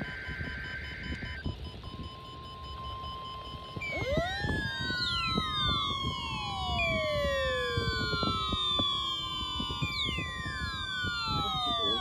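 Weather radio test signal: a short burst of digital EAS header data, then a steady alert tone from about two seconds in. From about four seconds in, several weather radio receivers sound their alarms together, a tangle of overlapping rising and falling siren-like wails.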